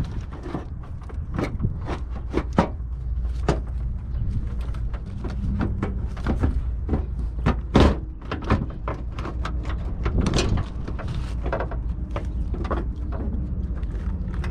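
Irregular plastic clicks, knocks and scrapes as a Cadillac DTS headlight assembly is worked loose and pulled out by hand, over a steady low rumble.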